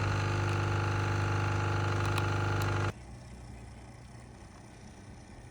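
Nespresso coffee machine's pump buzzing steadily as it pushes water through a capsule, then cutting off abruptly about three seconds in. A much fainter steady noise carries on afterwards.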